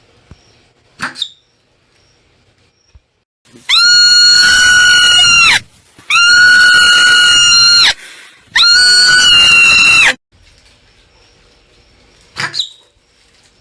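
Marmot calling: three loud, long, high-pitched screams of about two seconds each, each held on one pitch. A short, sharp chirp comes before them and another after.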